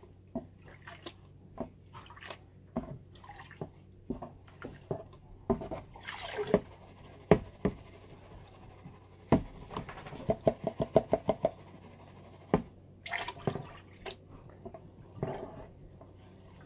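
Water sloshing and splashing in a plastic gold pan as it is dipped and swirled in a tub of water to wash paydirt, with scattered knocks. About ten seconds in comes a quick rhythmic run of about eight shakes.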